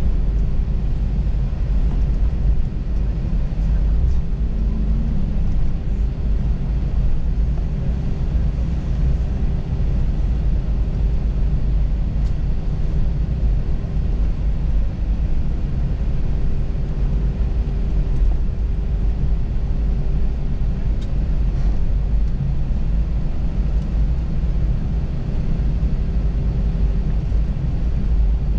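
Cabin noise inside an Airbus A321-231 airliner taxiing: a steady low rumble with a constant hum, from its IAE V2500 engines at low power.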